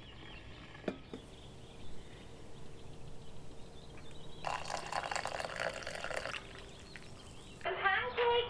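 French press plunger being pushed down through brewed coffee, a short liquid, gurgling hiss lasting about two seconds midway. Music with singing starts near the end.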